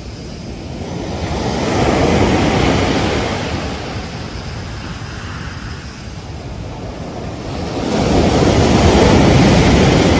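Ocean waves breaking on a beach: one surge peaks about two seconds in and washes away, and a second, louder wave breaks near the end.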